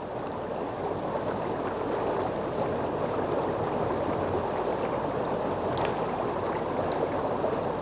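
River water flowing with a steady rushing sound.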